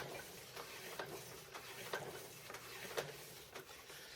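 Light, irregular metallic clicks and ticks, roughly one every second with fainter ones between, from metal parts of a mini lathe's carriage being handled and adjusted.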